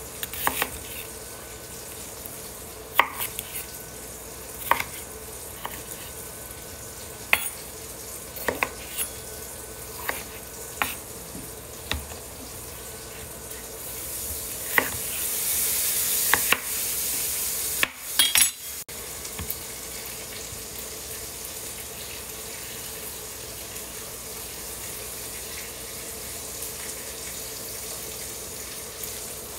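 A chef's knife chopping onion and tomato on a plastic cutting board: irregular sharp knocks of the blade against the board, most of them in the first half. About halfway through, a loud hiss lasts a few seconds and then cuts off abruptly.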